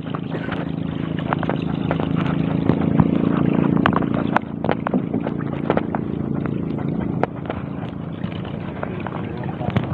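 Small wooden boat's engine running steadily as the boat moves over calm water, easing down in level about four seconds in and again a few seconds later, with scattered light clicks.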